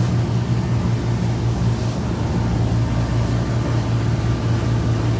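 Lobster boat's engine running steadily underway, a constant low drone with no change in speed.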